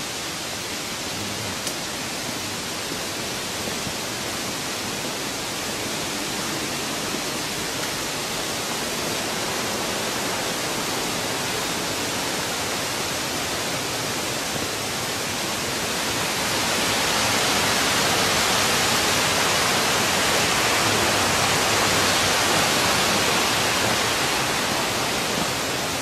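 Steady rushing of a waterfall heard from the path above it. It swells louder about two-thirds of the way through, then eases slightly near the end.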